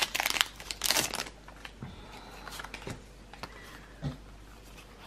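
A foil booster-pack wrapper crinkling as it is pulled open, then quieter rustles and small taps as the trading cards are drawn out and handled, with one louder tap about 4 s in.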